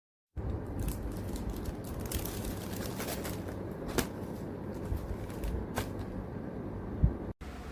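Handling noise: rustling and scraping, with a few sharp clicks and a louder thump near the end.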